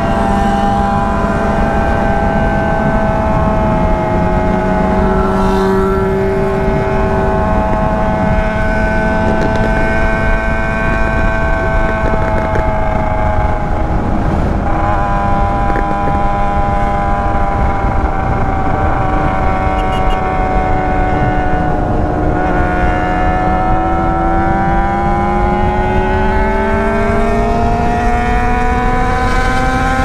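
Yamaha Fazer 600 (FZ6) inline-four with a straight-pipe exhaust running at cruising speed, its pitch drifting gently and then climbing steadily through the last third as it accelerates. Steady wind rumble on the microphone underneath.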